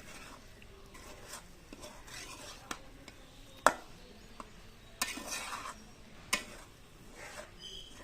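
A spatula stirring and scraping chowmein noodles around a pan, with intermittent scrapes and sharp clinks of the utensil against the pan, the loudest about three and a half seconds in.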